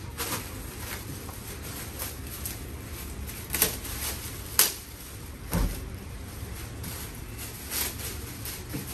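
Thin plastic disposable apron rustling as it is pulled off a roll and shaken open, with three sharp crackles about three and a half, four and a half and five and a half seconds in.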